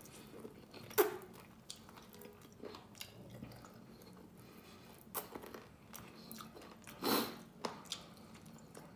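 A person eating a mouthful of rice and viand: close chewing with a few short, sharp mouth smacks, one about a second in and several between five and eight seconds, the loudest near seven seconds. A faint steady low hum sits underneath.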